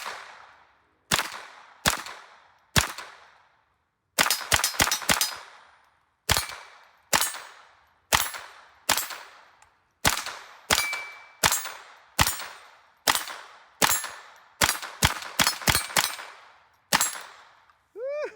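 Shots from a .22 LR AR-15 pistol with a CMMG conversion kit and a Franklin Armory binary trigger: a string of about thirty sharp cracks, some single and some in quick pairs as the trigger fires on both pull and release.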